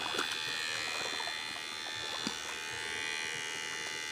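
Electrofishing shocker's inverter running with a steady, high buzzing whine while it puts current into the water, with a few faint clicks.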